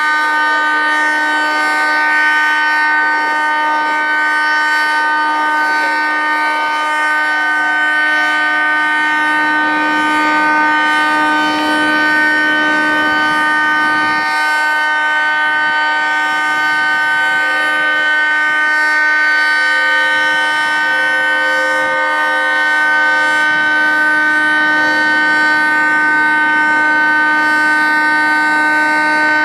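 Federal Signal 3T22 three-tone outdoor warning siren sounding a loud, steady chord with no rise or fall in pitch: the continuous Alert signal of a siren test.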